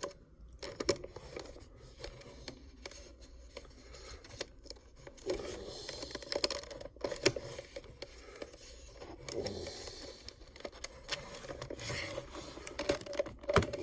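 Dymo label maker being worked by hand as a label is fed out and cut with its built-in cutter: scattered light clicks with a few short stretches of scraping.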